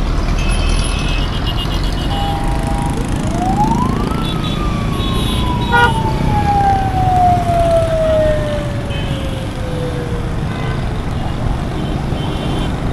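Busy road traffic, with car and motorcycle engines and several short horn toots. About three seconds in, a siren rises quickly and then falls slowly over some seven seconds.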